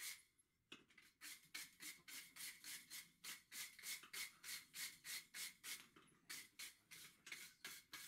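Rapid back-and-forth scrubbing of a hand tool on a forged steel bar, about four strokes a second, pausing briefly just after the start.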